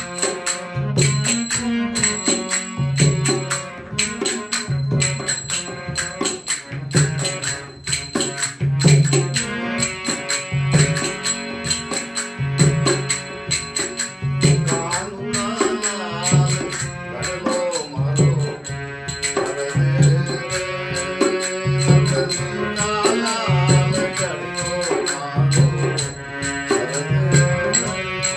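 Harmonium playing a devotional bhajan, with a man singing along from about ten seconds in, over a steady beat of drum strokes and jingling percussion.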